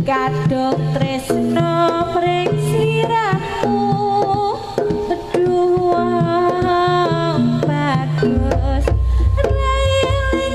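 Live Javanese jaranan accompaniment music over an amplified sound system: drumming and struck percussion under a high melody with sliding notes. A deep booming bass beat comes in about eight seconds in.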